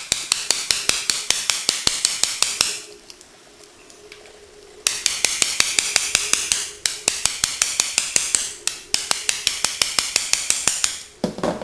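CISA bump key being struck repeatedly in a CISA lock cylinder to bump the pins: sharp metallic taps about five a second, in runs of a few seconds with a short pause about three seconds in. The lock does not open.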